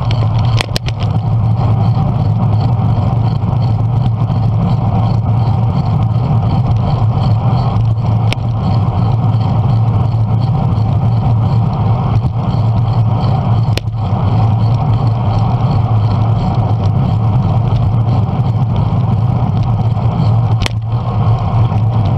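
Steady low rumble of car traffic on the road alongside, heard while riding a bicycle down the bike lane, with a few sharp clicks now and then.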